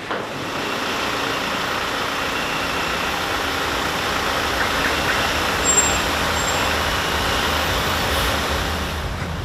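Parked school bus idling: a steady, even engine noise with no change in speed.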